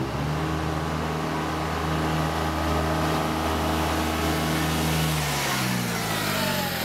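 RTV utility vehicle's engine running at a steady pitch as it drives up; the pitch falls over the last second or so as it goes past. It is being driven to test its repaired transmission.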